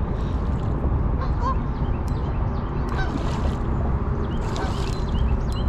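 Steady rush of shallow river water around a wading angler, with a couple of brief splashes about three and five seconds in.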